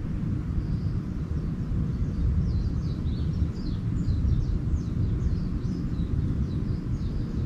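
Small birds twittering in quick series of short high chirps, over a steady low rumble.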